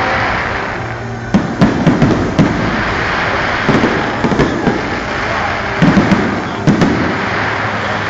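Aerial fireworks shells bursting in a large pyrotechnic show: about ten sharp bangs in clusters of two to four, over a continuous background noise.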